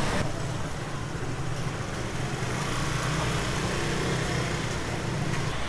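Steady street noise of motor scooters running through a busy market lane.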